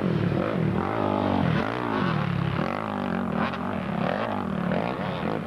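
Off-road motorcycle engines revving hard as several dirt bikes climb and corner close together, the pitch rising and falling again and again with throttle and gear changes.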